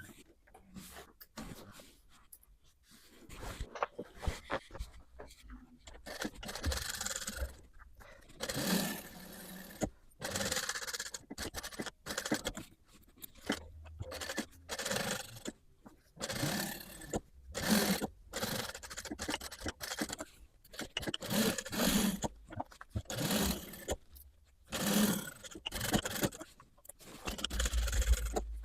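Denim fabric scraping and rustling as it is handled, in irregular bursts of about a second or less.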